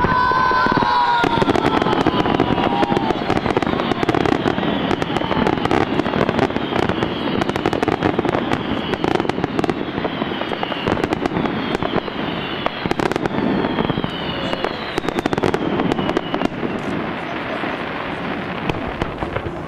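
A fireworks display: a dense, continuous barrage of crackling and popping, with several whistles falling in pitch, the strongest right at the start. The barrage eases off near the end.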